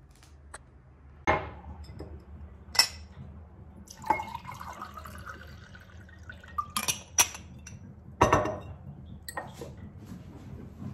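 Water poured from a glass pitcher into a cut-glass tumbler, splashing for about two and a half seconds from about four seconds in. Sharp clinks and knocks of glass on glass and on the counter come before and after it, the loudest about eight seconds in.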